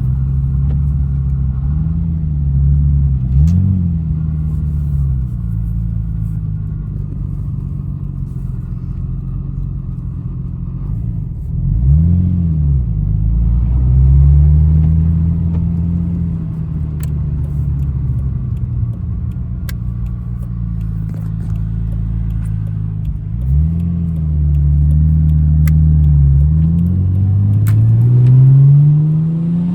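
Nissan Skyline R34 GTT's turbocharged straight-six running on the move, its revs climbing and dropping several times as it pulls and shifts between steadier stretches.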